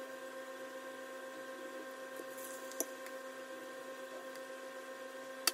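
Steady humming tone throughout, with faint scraping and a single light clink a little past the middle as a metal spoon scoops filling from a glass bowl.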